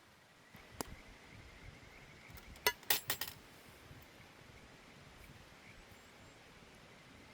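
A few sharp metal clinks of cookware or utensils: a single one near the start, then a quick cluster of louder clinks about three seconds in. Under them run the steady hiss of a mountain stream and a faint high pulsing trill.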